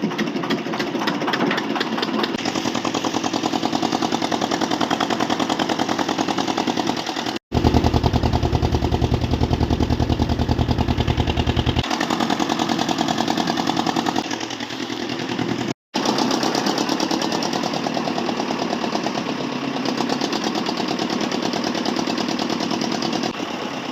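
A fishing boat's engine running steadily with a rapid, even chugging beat, broken by two brief dropouts.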